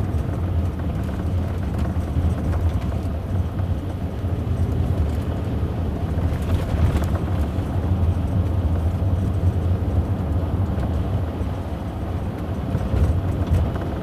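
Steady road and tyre noise on a wet road inside a moving Land Rover Discovery Sport's cabin, with occasional faint knocks and rattles from the rear pillar trim, which the owner takes for cheap trim flexing.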